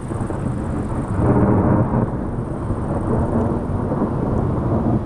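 Thunder rolling: a long, low rumble that swells about a second in and carries on for several seconds.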